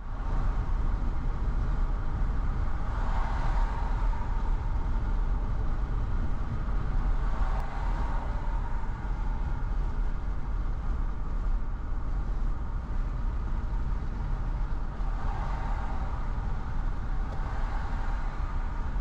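Steady low rumble of a road vehicle driving, swelling a few times.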